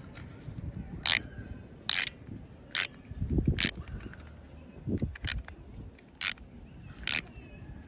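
Sharp plastic clicks from a toy spinning-disc launcher as its blue propeller disc is worked onto the shaft, about seven clicks roughly a second apart, with soft handling rubs between.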